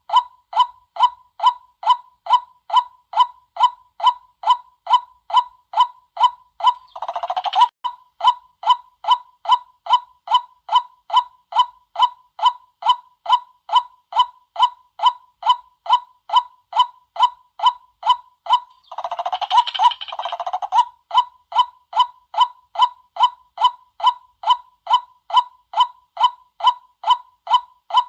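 White-breasted waterhen calls repeated in a steady, even series of about two 'kwak' notes a second, with a harsher, noisier call cutting in twice, about seven seconds in and again around twenty seconds in.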